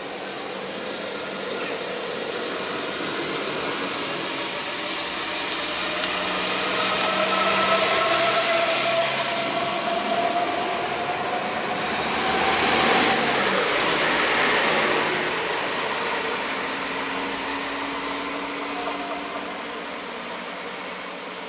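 Diesel multiple unit SA138 pulling out along the platform and passing close by. Its engine note and whine rise in pitch as it picks up speed, are loudest as it passes, then fade as it draws away.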